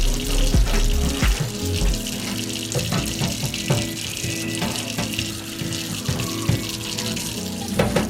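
Kitchen tap running into a sink, with occasional clinks, under background music that has a heavy bass in the first couple of seconds.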